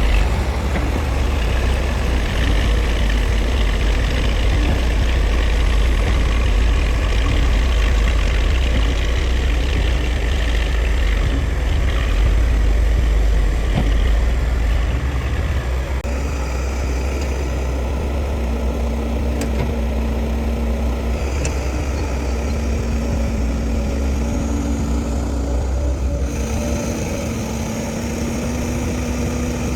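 Heavy diesel engine of construction machinery running steadily, with a deep rumble that lightens about halfway through as a steady hum comes in.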